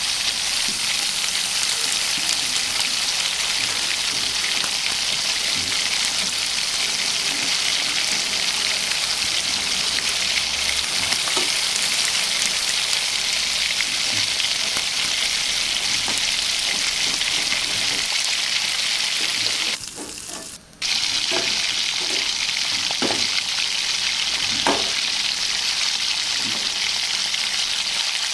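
Bread egg upma sizzling steadily in hot oil in a pan, with light clicks as it is stirred. The sizzle cuts out for about a second a little past two-thirds through, then resumes.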